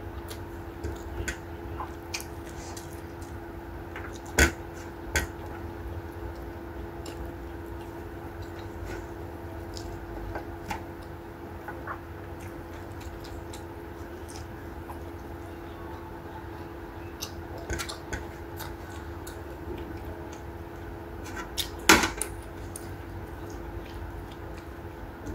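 Eating by hand at a table of plates and bowls: scattered light clicks and knocks of fingers and dishes, with two louder knocks, about four seconds in and after about twenty seconds, over a steady low hum.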